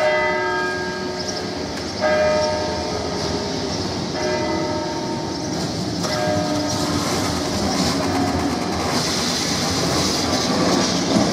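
A Lisbon Remodelado heritage tram's bell gong struck four times, about two seconds apart, each strike ringing and fading. Then the tram's steel wheels grind and rumble along the rails, louder as it passes close.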